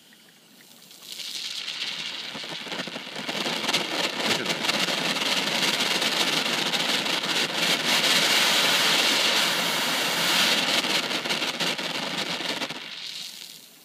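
HHO (oxyhydrogen) torch flame hissing with a dense crackle, swelling after about a second and falling away near the end.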